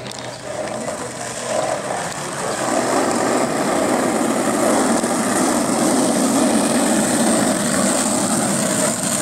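Skateboard wheels rolling over rough asphalt: a steady rumble that grows louder about two seconds in as the board comes closer, ridden in a manual on its back wheels.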